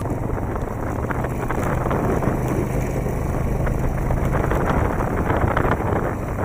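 Wind rushing over the microphone, with a steady low engine hum beneath it, as from a vehicle moving alongside.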